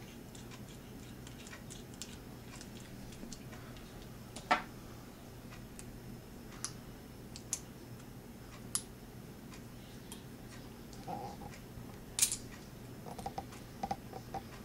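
Faint, scattered clicks and ticks of a small screwdriver backing out the screw that holds a Micro Swiss aluminium extruder lever arm and its spring, with the small metal parts clicking together in the hand. The sharpest clicks come about four and a half seconds in and again near twelve seconds.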